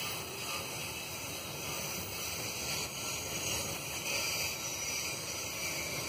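Freight wagons rolling past on the rails: a steady noise of steel wheels on track.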